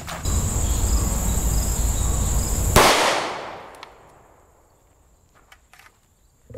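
A single shot from an FN Five-seveN pistol firing a 5.7x28mm round: a sharp crack about three seconds in that echoes and fades over about a second. Before it there is a steady rushing noise with a high, even insect buzz.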